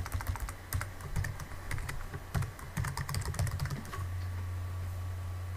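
Typing on a computer keyboard: quick, irregular key clicks for about four seconds, then the typing stops and a steady low hum is left.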